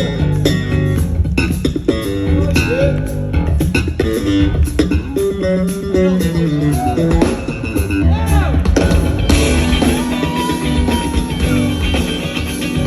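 A live funk band playing, with electric guitar and bass guitar up front over drums. Bent guitar notes come in the first part, and the full band swells into a denser sound about nine seconds in.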